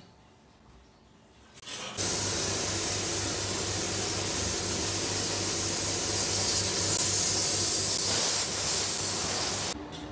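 Near silence for about two seconds, then a gravity-feed compressed-air spray gun hisses steadily as it sprays enamel onto a steel sign plate. The hiss cuts off abruptly near the end.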